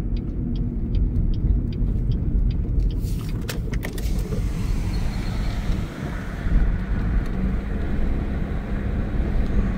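Car driving, heard from inside the cabin: steady low engine and tyre rumble. Light regular ticking, about three a second, runs for the first three seconds. From about three seconds in, the tyre noise turns hissier as the car runs onto a rougher rural road.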